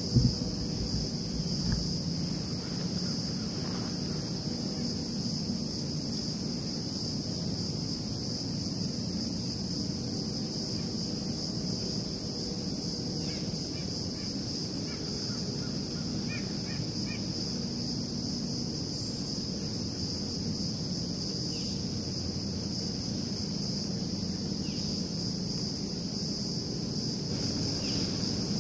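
Steady, high-pitched insect chorus that does not let up, over a low steady hum, with a few faint bird chirps about halfway through.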